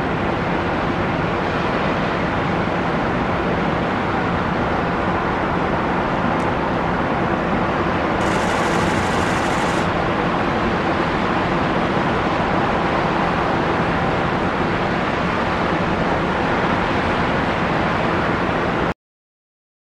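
Steady hum of distant city traffic, with a brief high hiss about eight seconds in; the sound cuts off abruptly near the end.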